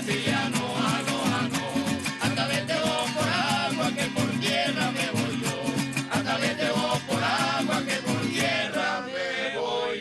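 Venezuelan folk group singing in several voices over strummed cuatros and a sexto, with a hand drum. The strumming breaks off about nine seconds in while a held note goes on.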